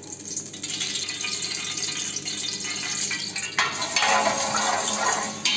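Cooking oil ladled into a large aluminium pot and stirred with a steel ladle: a steady hiss that grows louder about three and a half seconds in.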